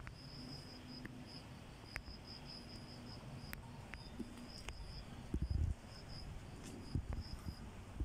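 An insect chirping steadily in quick, high-pitched pulses. Twice in the second half come a few low thumps, louder than the chirping, and there are scattered faint clicks.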